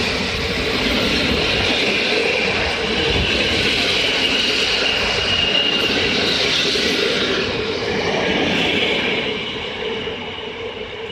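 PKP Intercity passenger coaches rolling past close by: steady wheel-on-rail running noise with a thin high squeal briefly about halfway, fading over the last couple of seconds as the last coach pulls away.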